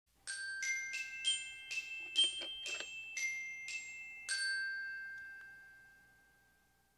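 A short intro jingle of glockenspiel-like struck bell notes, about ten notes in a rising-and-falling run, the last one ringing out and fading away.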